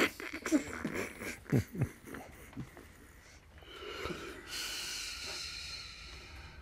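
Soft, breathy laughter: a few short puffs of laughing breath in the first two seconds, then a longer hissing breath from about three and a half seconds in.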